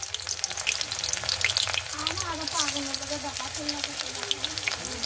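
Chopped onion frying in hot mustard oil in a kadai, a steady crackling sizzle.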